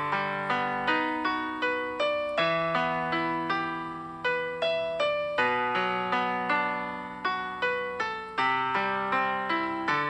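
Background piano music: notes struck about twice a second, each dying away before the next.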